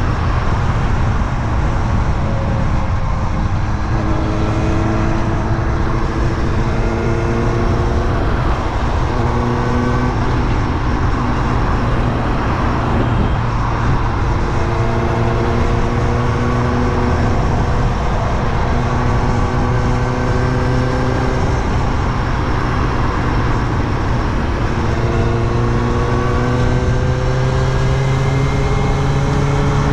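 Kawasaki Ninja ZX-6R's inline-four engine under way, its note climbing slowly in three long stretches with breaks between them, over steady wind rush.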